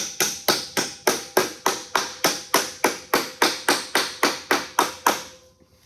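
Rubber mallet tapping a small tab of 26-gauge galvanized sheet metal over the edge of a wooden board, bending it up. The strikes come quickly and evenly, about four a second, and stop about five seconds in.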